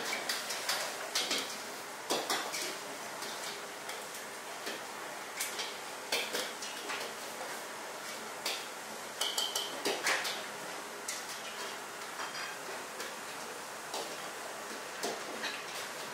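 Metal spatula scraping and clanking irregularly against a steel wok as rice noodles are stir-fried, over a steady frying hiss.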